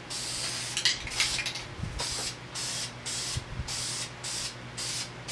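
Aerosol spray paint can spraying paint onto a metal anvil in short bursts of hiss, about two a second, with a couple of light knocks about a second in.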